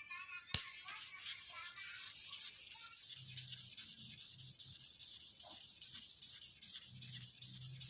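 Sandpaper rubbed by hand over a small part in quick, even back-and-forth strokes, several a second, taking a replacement stopper piece down to size. A sharp click about half a second in.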